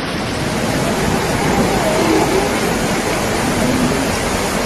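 Muddy floodwater rushing through a street as a steady, loud wash of noise, with faint voices under it about halfway through.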